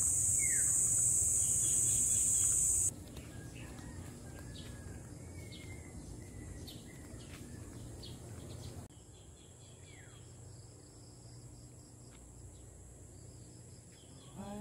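Rural outdoor ambience. A loud, steady, high insect buzz fills the first three seconds, then drops away to birds chirping over a low wind rumble. The background changes again about nine seconds in, with more bird calls.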